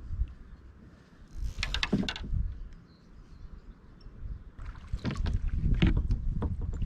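Kayak paddling: two spells of paddle strokes splashing and knocking, a short one about a second and a half in and a longer one from about the middle on.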